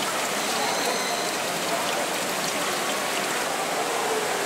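Steady rush of running or falling water. A faint, thin high whistle comes in briefly about a second in.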